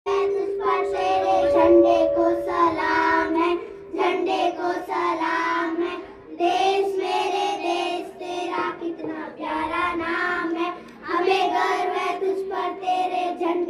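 Group of schoolchildren singing together into microphones, in sung phrases broken by short pauses every few seconds, over a steady held accompaniment note.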